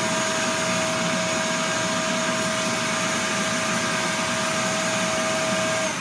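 Ridgid 12-gallon wet/dry shop vacuum running steadily, a constant motor whine over the rush of air, as its hose wand sucks up small bits from a carpet. The sound stops abruptly just before the end.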